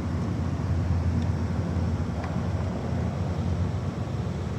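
Oxy-acetylene torch flame burning with a steady rushing sound as it heats a brazed copper pipe joint.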